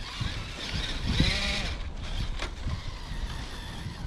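Electric motor of an RC crawler truck revving briefly about a second in, with a rising-then-falling whine, as the truck struggles to get through snow. A low rumble runs underneath.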